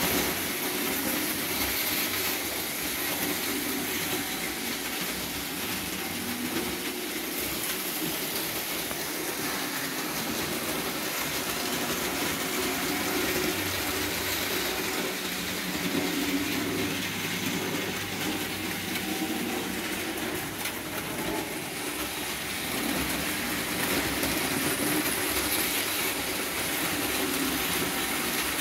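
Several Märklin model trains running at once on metal three-rail track, a steady mechanical noise of their motors and wheels.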